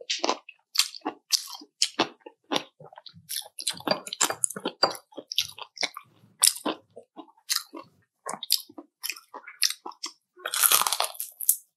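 A person chewing crispy fried chicken skin: a quick, uneven run of short crunches, with a denser burst of crunching a little before the end.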